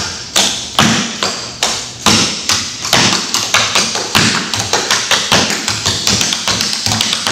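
Clogging taps on a wooden floor: one dancer beating out a step sequence without music, a run of sharp metal taps and stomps, about three a second at first and coming thicker and faster toward the end.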